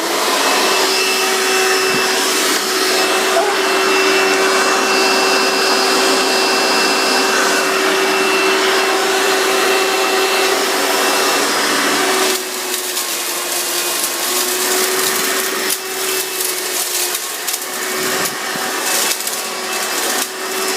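Hoover Elite vacuum cleaner starting up and running, a steady motor hum and whine with rushing air. About twelve seconds in the level drops a little and the running turns more uneven, with scattered scratchy clicks.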